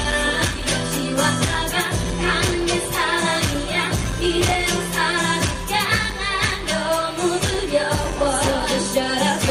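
Female singer singing live into a handheld microphone over a pop backing track with a steady beat.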